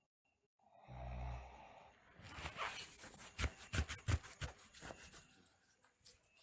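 A sleeping girl snores once, briefly and low, about a second in, then grinds her teeth in a run of rapid clicks and scrapes lasting about three seconds: nocturnal bruxism.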